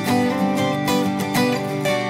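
Background music: plucked acoustic guitar strumming a steady pattern.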